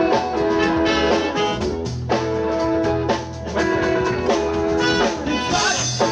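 Live band with a horn section of saxophones and trumpet, electric guitar, keyboard, bass and drums playing an upbeat tune, with chords held about once a second over a steady beat.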